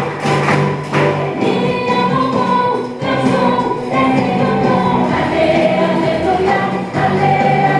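Choral music: a group of voices singing a song with musical backing.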